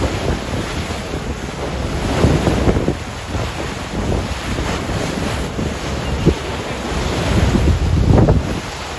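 Wind buffeting the microphone over the wash of choppy sea water around a boat, in uneven gusts that swell about two seconds in and again near the end.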